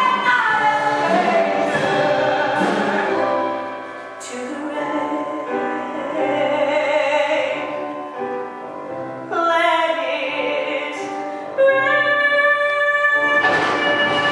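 Woman singing a musical-theatre ballad over instrumental accompaniment, holding long notes. The accompaniment carries on more softly through the middle, and the voice comes back strongly on a held note near the end.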